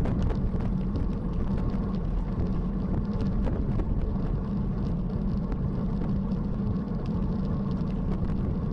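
Steady rumbling wind and road noise, as from riding a bicycle along an asphalt road with the camera running. It holds even throughout, with no distinct events.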